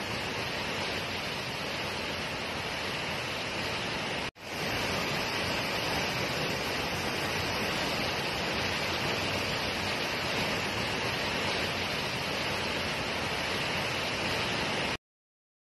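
Tall waterfall plunging into a pool: a steady rush of falling water. It cuts out for an instant about four seconds in, comes back, and stops abruptly shortly before the end.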